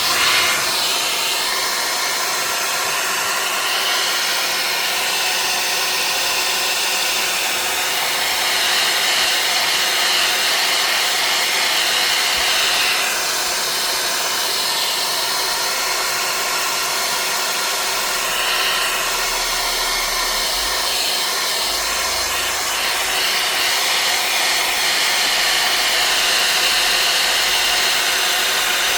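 Hot-air gun blowing steadily on the tablet's newly fitted front glass, heating the adhesive so it bonds firmly to the frame.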